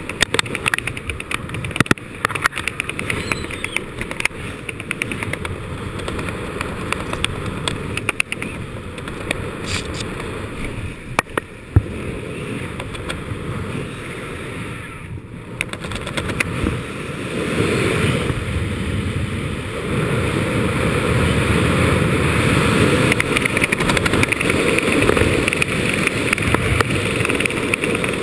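Wind buffeting an action camera's microphone as a parachutist descends under an open canopy: a steady rushing, fluttering noise that grows louder about two-thirds of the way through.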